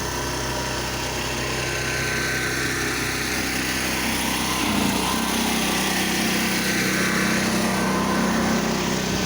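Gas pressure washer engine running steadily under the hiss of the high-pressure water spray on concrete. The sound of the spray changes a little about halfway through.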